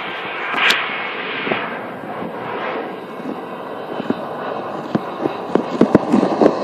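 Jet airliner passing on its landing approach: a steady rushing engine noise, with several short sharp clicks near the end.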